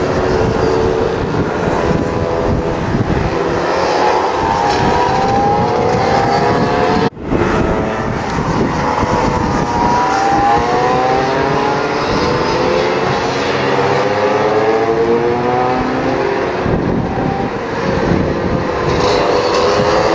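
Several Vespa scooters' two-stroke engines racing round the circuit, their overlapping notes rising and falling in pitch as the riders accelerate and back off. The sound drops out briefly about seven seconds in.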